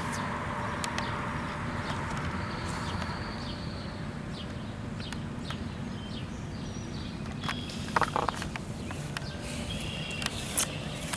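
Outdoor ambience: a steady low rumble with a few short, high chirps, like birds, and scattered clicks and knocks, the loudest about eight seconds in.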